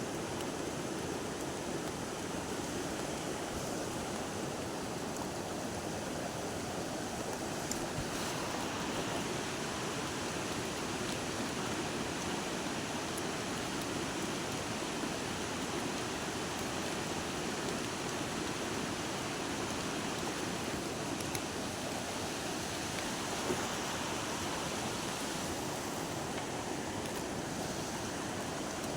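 Steady rushing of flowing river water, with a few faint ticks.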